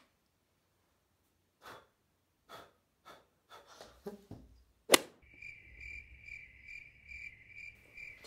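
Cricket chirping, the comedy 'crickets' sound effect for an awkward silence: a steady high chirp pulsing about two to three times a second, starting abruptly about five seconds in and cutting off at the end. Before it come a few short, soft noises and a sharp click.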